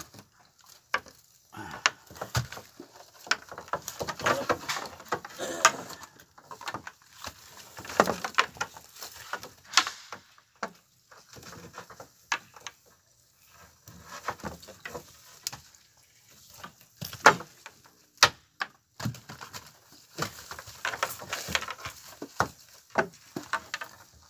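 Water splashing and spattering over a fishing net, with irregular sharp knocks and clatter as the net is handled on the boat's deck.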